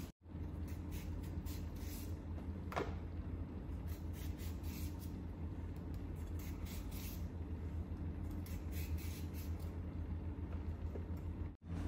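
A hand blade shaving thin slices off a fresh cucumber in quick, crisp, irregular strokes, over a steady low hum.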